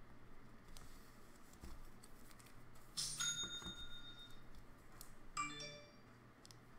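Two electronic alert chimes. The first is a single bright ringing tone about three seconds in that holds for about a second. The second, near the end, is a shorter chime of several quick notes. Faint clicks of cards being handled sound in between.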